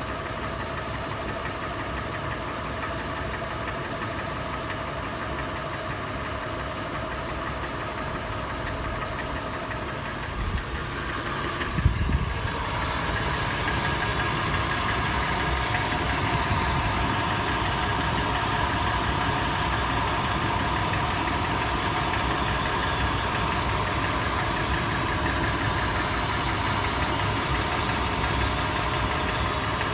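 FJ engine idling warm with a loud, sharp metallic tapping or knocking. About twelve seconds in there is a thump, and from then on the engine sound is louder.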